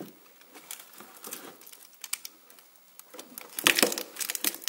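Light scattered clicks of hard plastic, then a quick, louder run of clicks near the end, as a snap-off utility knife is worked in to cut a plastic retaining clip off a car's wiring harness.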